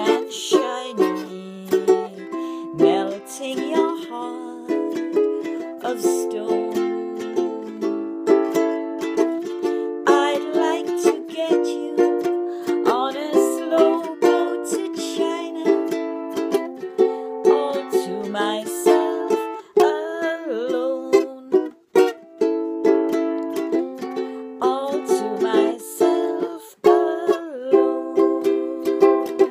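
Kala concert ukulele playing an instrumental passage without singing, strummed chords in a steady rhythm with melody notes over them.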